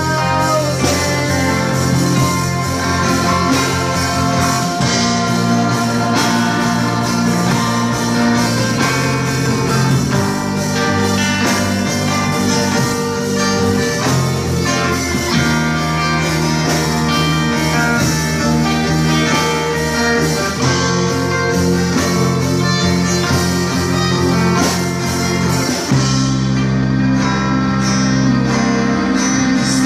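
A small live band of acoustic guitars, bass guitar, keyboard and drum kit plays a slow pop ballad while a girl sings into a microphone.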